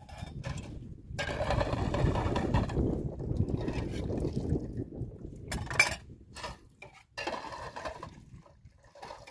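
Water splashing as dishes are rinsed by hand, loudest for a few seconds early on, followed by sharp clinks of a glass and metal pots.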